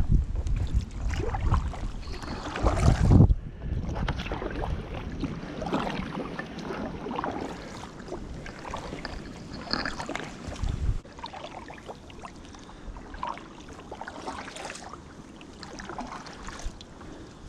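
Kayak paddle strokes dipping and splashing in the water, roughly one a second, with wind rumbling on the microphone that cuts out about two-thirds of the way through.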